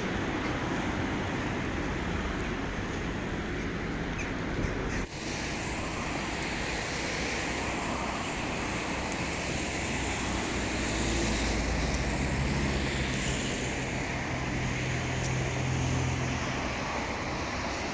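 Road traffic running steadily on the street, with a heavier vehicle's engine hum swelling and passing in the second half. A brief knock about five seconds in.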